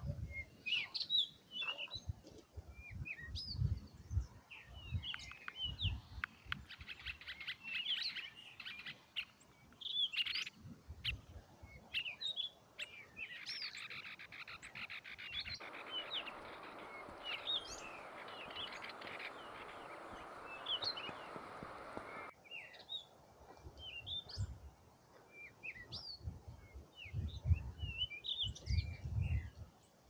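Small birds chirping and calling in short, repeated notes, with gusts of wind buffeting the microphone as low rumbles, strongest near the end. About halfway through, a steady rushing hiss sets in for several seconds and then cuts off suddenly.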